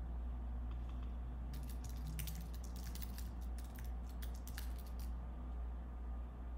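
Typing on a computer keyboard: a quick run of keystrokes that starts about a second and a half in and stops about five seconds in, over a steady low hum.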